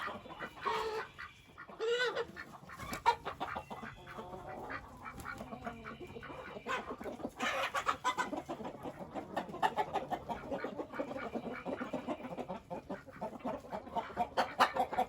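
Chickens clucking repeatedly, with a few louder drawn-out calls in the first two seconds.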